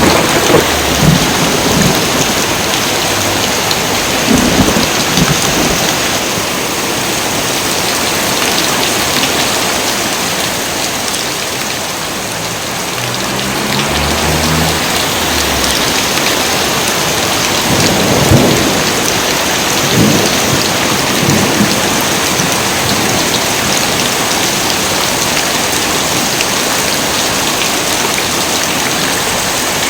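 Heavy rain pouring steadily, with thunder rumbling and cracking several times: near the start, around the middle, and again a little later.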